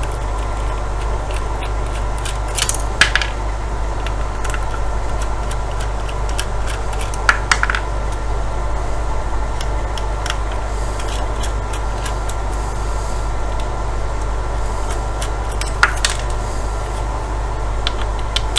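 Small screws clicking and rattling a few times as they are taken out of a router's circuit board and set down, over a steady low hum.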